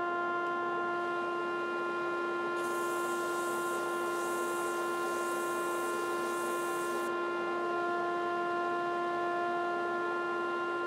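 Belt grinder running with a steady hum. From about two and a half seconds in until about seven seconds, a wooden knife handle block is pressed against the moving belt, adding a high sanding hiss as the taper is ground in.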